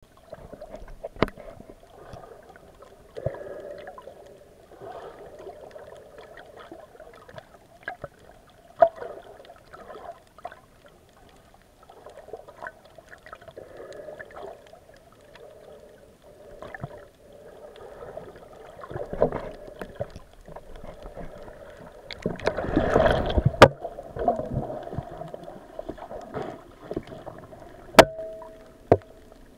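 Muffled water noise picked up underwater through a waterproof camera housing, with scattered sharp clicks and knocks and a louder rush of water about 23 seconds in.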